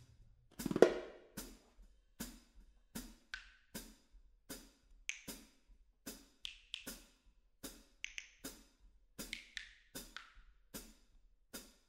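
Sparse percussion: separate sharp strikes on hi-hat, snare drum and woodblocks at about two a second, some giving short, higher knocking tones, with one heavier hit about a second in.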